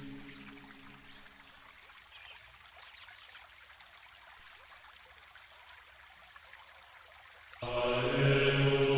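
Background music of long held tones fades out over the first two seconds, leaving only faint hiss, then comes back in abruptly near the end.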